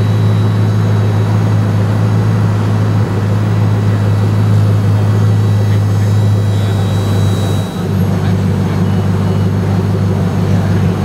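Koenigsegg CCXR's twin-supercharged V8 idling steadily with a low, even hum.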